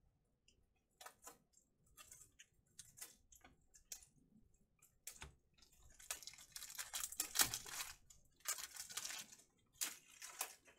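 A foil Panini Chronicles Baseball card pack being handled and torn open by hand. Small clicks and taps come first, then the wrapper crinkles in dense stretches from about six seconds in to near the end.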